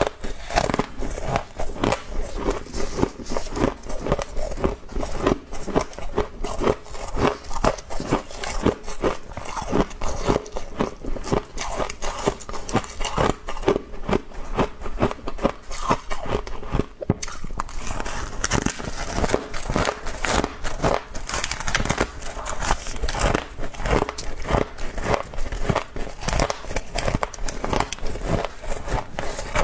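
Close-up chewing of soft frost shaved from a humidifier: rapid, irregular crunching and crackling bites, several a second, without a break.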